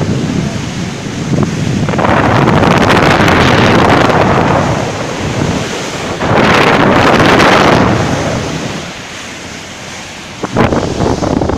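Wind buffeting the phone's microphone over the rush of a ship's bow wave breaking around the bulbous bow. The noise swells and eases in gusts, drops away for a couple of seconds near the end, then comes back abruptly.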